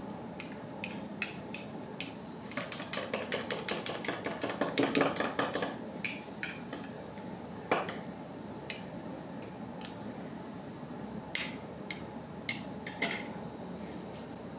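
A long metal spoon stirring a drink in a tall glass, clinking against the glass: a fast run of clinks a few seconds in, then scattered single clinks, the loudest about eleven seconds in.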